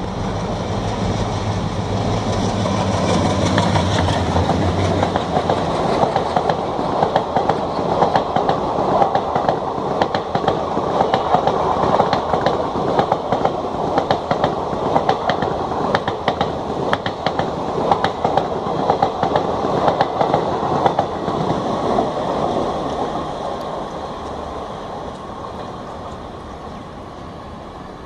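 WDM3A diesel locomotive with its superfast express train passing at speed. A steady low engine drone for the first few seconds gives way to the rush of the coaches and a rhythmic clickety-clack of wheels over rail joints, loudest midway, then fading as the train runs away.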